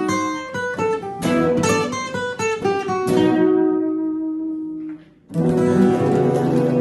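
Acoustic guitar and electric bass playing an instrumental passage: quick picked notes and strums, then a chord rings out and fades about three seconds in. After a brief drop in level near five seconds, a new sustained chord comes in and holds.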